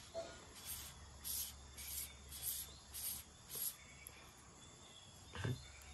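Wide-angle conversion lens being screwed by hand onto a Sony ZV-1's lens adapter: a run of short, faint scraping rasps, about two a second, as the barrel is twisted, then a single dull knock near the end.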